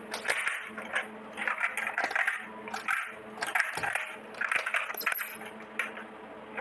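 Miniature stainless-steel toy kitchenware clinking and tapping as it is handled, in several short clusters of light metallic clicks.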